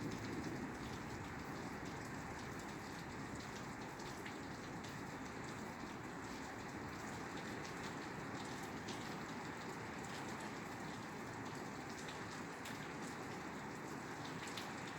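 Steady rain falling on a roof: an even hiss with scattered sharp ticks of single drops striking.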